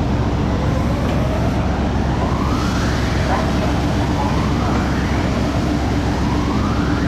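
Steady low rumble of a car ferry's machinery while berthing, with a rising whine that sweeps up and starts over three times.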